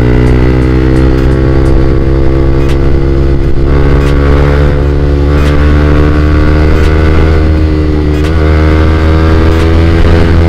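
Motorcycle with an RC X-Speed Proliner aftermarket long 'volume' exhaust running under way. The engine note climbs a little over the first couple of seconds, then holds steady at cruising speed, with a brief dip and wobble about eight seconds in, like a gear change.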